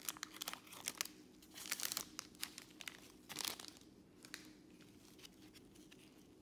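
Foil trading-card pack wrapper crinkling and crackling as it is pulled apart by hand, a dense run of sharp crackles for about the first three and a half seconds, then only a few faint rustles as the cards are slid out.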